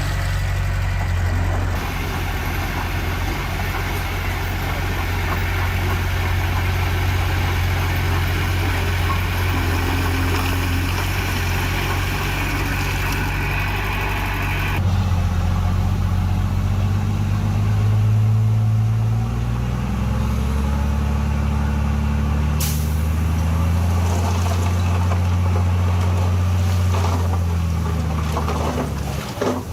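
Heavy diesel construction machinery running steadily: the engines of a dump truck and bulldozer at work. The engine sound changes abruptly about halfway through, then its pitch rises and falls a little, with one sharp click later on.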